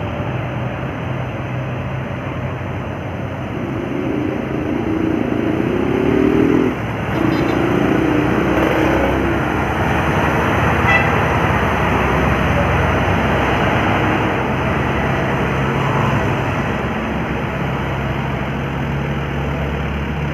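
Road traffic climbing a hill, heavy engines running steadily, with a vehicle horn of several tones sounding together, held for about three seconds from about four seconds in, then again briefly after a short break.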